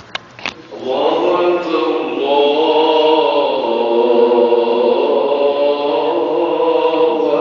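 A male muezzin's voice chanting the call to prayer in long, held, melismatic notes that begin about a second in. Two short clicks come just before it.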